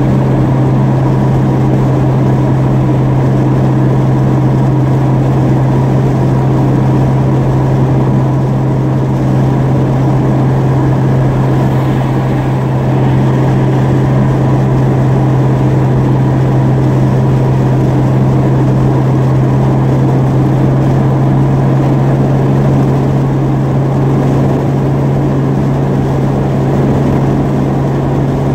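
Car engine and exhaust droning steadily at cruising speed, heard from inside the cab while driving.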